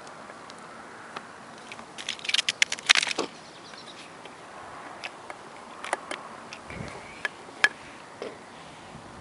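Close handling noise: a quick run of crackles and clicks about two to three seconds in, then a few scattered single clicks, over a steady low hiss. This fits the plastic wrapping of a firework pack being handled in front of the microphone.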